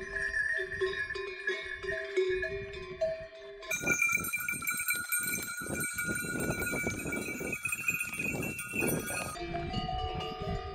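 Bells on pack yaks clanking and ringing as the caravan walks past, densest and brightest from about four seconds in until about nine seconds.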